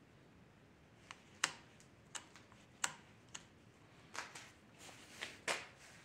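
About ten sharp, irregular plastic clicks, most likely the freshly reassembled left handlebar switch on a 1978 Yamaha SR500 being worked by hand.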